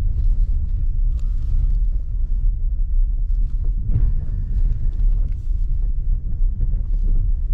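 A car driving slowly over a rough dirt track, heard from inside the cabin: a steady low rumble of engine, tyres and suspension, with a few scattered small knocks.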